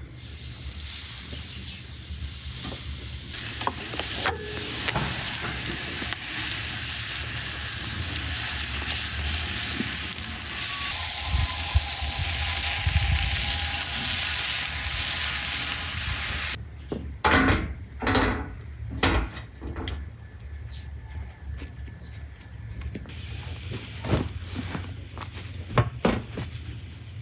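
Food sizzling as it cooks, a steady hiss that cuts off suddenly a little past halfway through. It is followed by a series of separate knocks and clicks.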